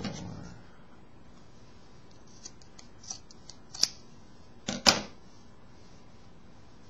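Scissors snipping through fabric: a few scattered sharp clicks, the two loudest about four and five seconds in.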